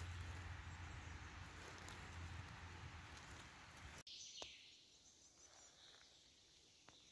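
Faint forest background: a soft hiss with a low rumble that slowly fades, then cuts off abruptly about four seconds in to near silence with a few faint bird chirps.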